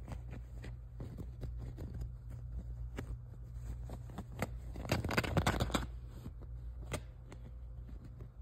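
A prairie dog scratching and digging into towels and pillow stuffing: scattered short scratches, then a denser spell of rustling and scraping about five seconds in.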